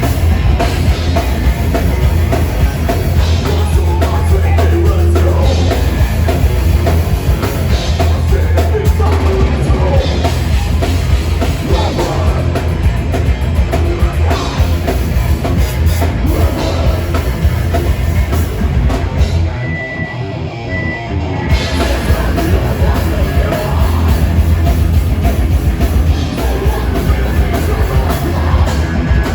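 Metal band playing live: distorted electric guitars, bass and a drum kit, with singing. About twenty seconds in the band briefly drops out for a second or so, then comes back in.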